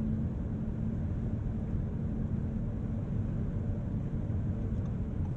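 Steady low road and tyre rumble heard inside the cabin of a 2022 Audi S8 L cruising at highway speed, with a low steady hum that fades out about halfway through.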